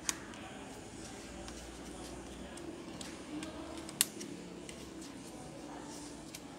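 Tissue rubbing and wiping on the plastic chassis of an HP EliteBook 840 laptop, cleaning off sticky spilled oil. Two sharp clicks of the tissue and fingers knocking against the plastic stand out, one right at the start and a louder one about four seconds in.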